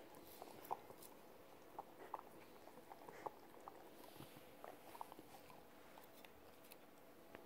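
A corgi licking an empty plate clean, its tongue and nose making faint, irregular clicks and taps on the plate.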